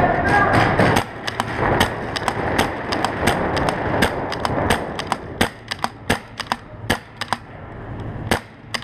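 Pump paintball markers firing across the field: a rapid, irregular series of sharp pops, often several a second, going on throughout.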